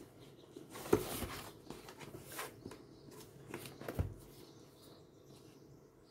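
Handling noise from a cardboard graphics-card box being turned over in the hands: a few soft knocks and scuffs, the sharpest about a second in and another around four seconds in.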